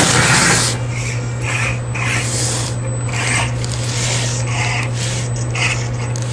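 RC4WD Trail Finder 2 1/24-scale mini crawler working over rocks: a steady low hum from its small electric drivetrain, with repeated short rasping scrapes of tyres and chassis on stone.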